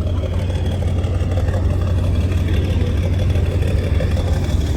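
Marine diesel engines rumbling steadily and low as tugboats come alongside a large ship, slowly growing louder, with a faint steady high whine above the rumble.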